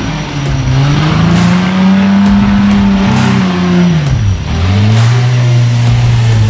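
Competition winch truck's engine revving hard as it climbs a steep, muddy hill. The revs hold high, drop away sharply about four seconds in, then pick up again at a lower, steady pitch.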